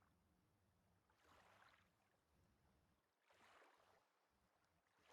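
Near silence, with two very faint, brief swells of soft noise.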